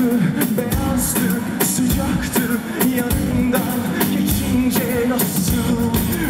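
Male pop singer singing live into a handheld microphone over a full band with a steady drum beat.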